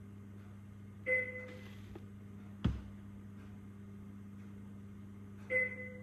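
Two identical short electronic beeps, about four and a half seconds apart, from hospital monitoring equipment around a baby's incubator, over a steady electrical hum. A single sharp knock sounds between the beeps and is the loudest thing.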